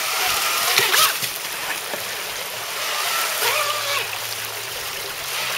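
Rushing whitewater creek with a radio-controlled jet boat's jet drive whining, its pitch rising and falling with the throttle. A few sharp splashes come about a second in.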